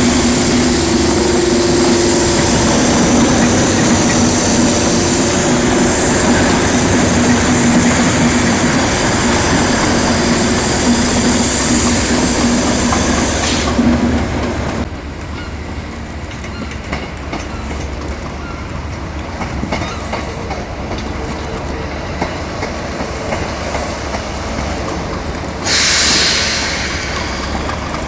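A train running past on the rails, loud, with wheel and engine noise and a steady hum. About halfway through it drops sharply to a lower rumble, and a short burst of hiss comes near the end.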